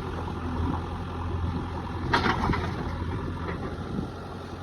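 JCB 3DX backhoe loader's diesel engine running steadily, with a brief clatter about two seconds in and a fainter one shortly after.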